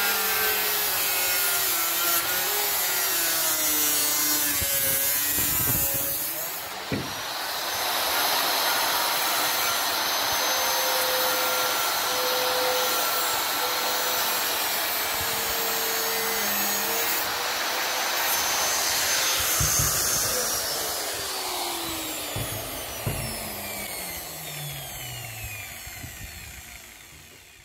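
Makita circular saw with a 1 mm cutting disc cutting through the van's sheet-steel roof. Its pitch wavers with the load, and it eases off briefly about six seconds in. Near the end it is switched off and winds down with a falling whine as the cut is finished.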